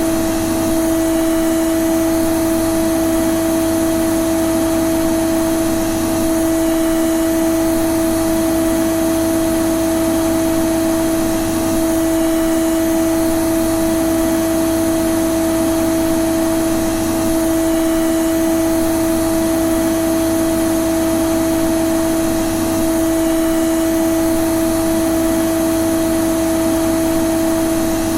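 Vacuum cleaner (hoover) running steadily: a constant motor hum with a clear pitch over a rush of air, holding an even level throughout.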